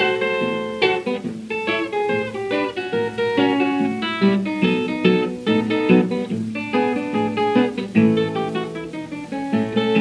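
Solo acoustic guitar picking an instrumental break of single notes and chords between the sung verses of a 1931 country blues recording. It has the narrow, top-cut sound of a 78 rpm record transfer.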